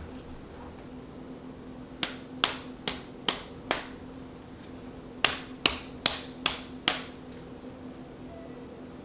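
Two runs of five sharp, evenly spaced clicks, about two and a half a second, during a chiropractic adjustment of the limbs; the first run starts about two seconds in, the second a little past five seconds.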